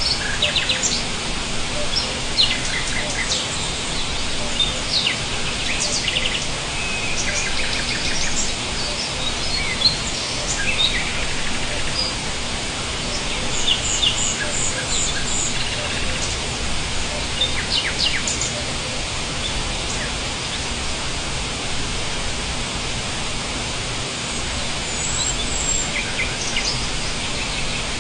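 Several small birds chirping and singing in short trills and calls scattered throughout, over a steady background hiss of outdoor noise.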